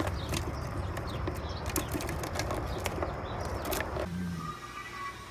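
Squirrel scrabbling inside a plastic bird feeder: irregular clicks and taps over a low outdoor rumble of wind. It stops suddenly about four seconds in, and what follows is much quieter.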